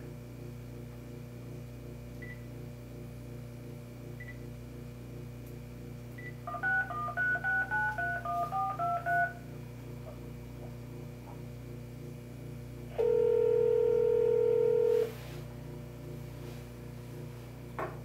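Touch-tone keypad of a cordless phone dialling a number: a quick run of about eleven beeping tone pairs, then one steady two-second ringback tone as the call starts ringing through. A low hum runs underneath, and there is a click near the end.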